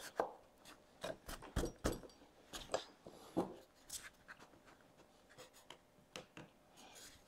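Light, scattered knocks, taps and rubbing as a plywood routing template is handled and lined up against a wooden workbench top; the router is not running.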